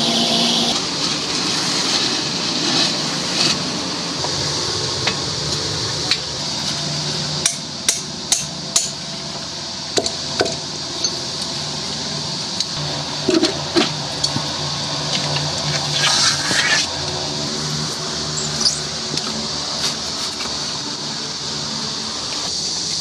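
Concrete core drill running steadily as it bores through a concrete floor slab, a constant whir and hiss with scattered sharp knocks and clinks.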